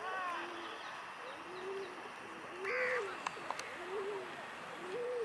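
A bird cooing: a low, arched note repeated about once a second. About halfway through comes a louder, higher bird call, followed by two sharp clicks.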